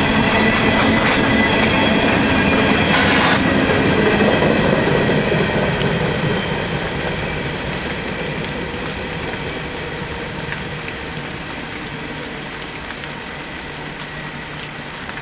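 Empty steel coal hopper cars of a long freight train rolling past, wheels clattering over the rails, with a high ringing that stops about three seconds in. The sound then fades steadily over the second half.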